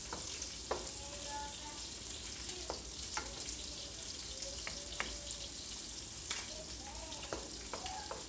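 Sautéing batchoy meat sizzling steadily in a pan, with a utensil clicking against the pan now and then as it is stirred.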